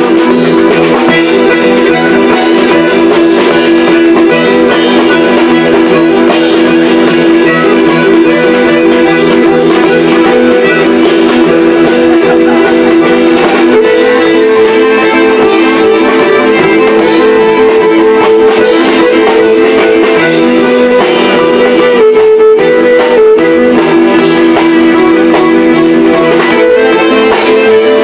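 Live instrumental folk music: a chromatic button accordion playing long held chords that change about halfway through, with fiddle and light percussion.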